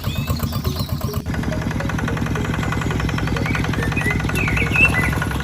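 Mini DIY tractor's small engine running with a rapid, even chugging beat, which changes to a faster, steadier beat about a second in.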